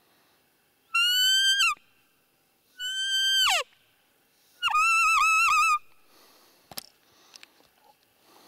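Three high, whistle-like roe deer fiep calls. The first two are short and hold their pitch before dropping away at the end. The third, about halfway through, is longer and wavers. Faint rustling and a single click follow.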